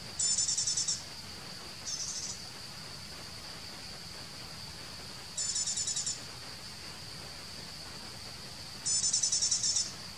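Forest insects calling: a steady high-pitched drone, with three loud, rapidly pulsing trills of under a second each near the start, past the middle and near the end, and a fainter short one about two seconds in.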